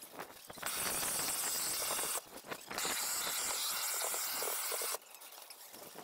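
Propane shrink-wrap heat gun firing with a steady hiss, switched on and off by its trigger: it starts just under a second in, stops briefly around two seconds, then runs again until it cuts off about five seconds in.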